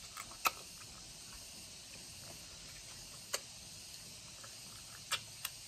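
Wet mouth clicks and smacks of someone biting and sucking ripe mango flesh off the peel: a handful of short sharp clicks spread across a few seconds, over a steady high hiss.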